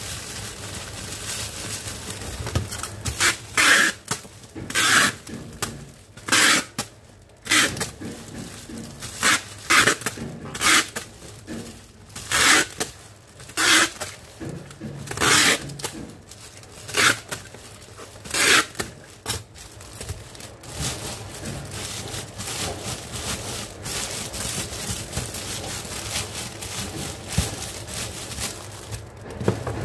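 Clear cellophane wrap crinkling as hands press and smooth it down, in a string of loud crackly bursts about once a second, then a softer, steadier rustle in the last third.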